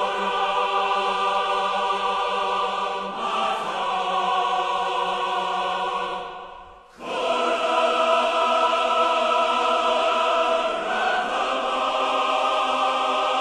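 Music of long held choir-like chords. It fades out about six seconds in and comes back a second later.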